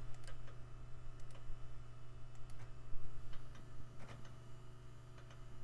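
Slot-loading CD-ROM drive reading a disc during a file copy. Its laser lens assembly makes irregular clicks and juddering sounds as it seeks, over a steady low hum.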